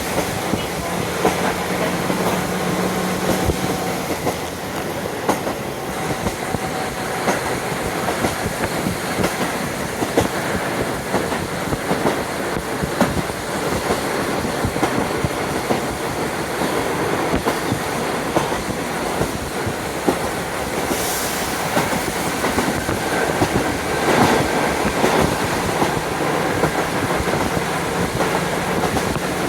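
JR Hokkaido KiHa 40 diesel railcar running along the line, heard from inside with a window open: steady wind noise over the running rumble, with a continual clatter of wheels over the rails.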